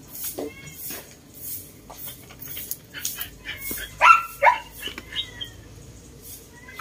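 A dog barking twice in quick succession, about four seconds in.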